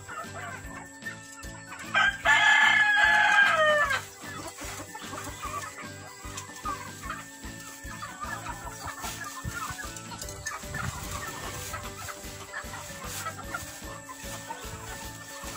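A rooster crows once, loudly, about two seconds in, the call lasting about two seconds and falling in pitch at its end. Hens and other chickens cluck and chatter throughout.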